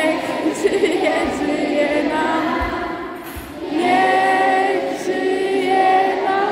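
A group of people singing a birthday song together. There is a short dip a little past the middle before the next line comes in louder.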